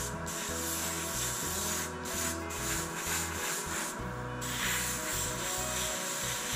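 Airbrush spraying gloss varnish with a steady hiss that breaks off briefly a few times, over background music.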